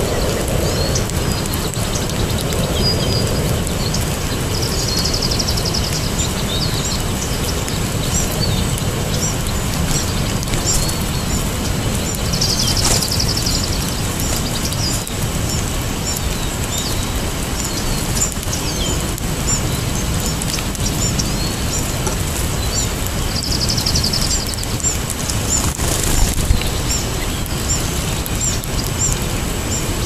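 Small songbirds giving many short, high chip calls, with three brief buzzy trills about five, thirteen and twenty-four seconds in, over a steady low rumble.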